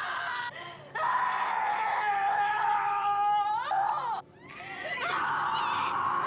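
A woman screaming in terror, in long high held screams broken by short gasps for breath; one scream rises in pitch and cuts off about four seconds in before she starts again.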